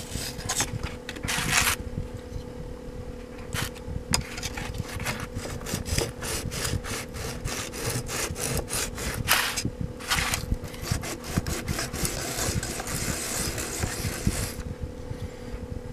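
Steel scissor blade rubbed back and forth flat on a wet 400-grit sharpening stone: a quick, continuous run of gritty scraping strokes. A small axial muffin fan hums steadily underneath.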